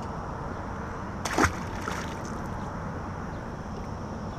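A short splash about a second and a half in, as a largemouth bass drops back into the lake, over a steady hiss of wind and water.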